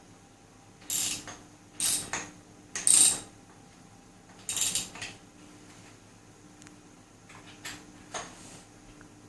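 Ratchet spanner clicking in several short, irregular bursts as bolts are tightened on the mini bike's handlebars, the loudest about three seconds in.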